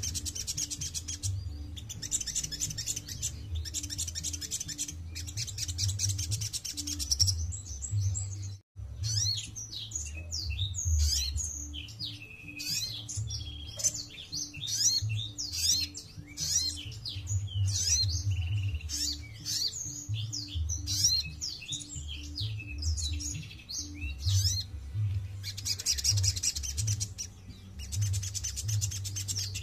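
A caged sunbird singing. It gives fast, high, buzzy trills at first, breaks off for a moment, runs through a long string of quick varied chirps and twitters, and returns to buzzy trills near the end, over a steady low hum.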